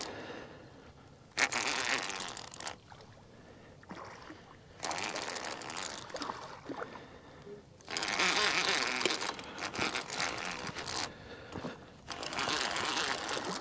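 Fishing reel cranked in four bursts with pauses between them, a fast run of ticks in each burst, as a heavy blue catfish is reeled in toward the bank.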